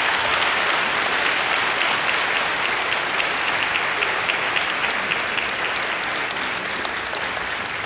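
Congregation applauding steadily, the dense clapping easing off slightly toward the end.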